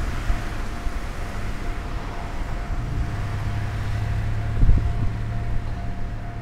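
Steady outdoor rumble of vehicles with wind on the microphone and a faint steady whine. A low hum comes in about three seconds in, and a single thump sounds a little before the end.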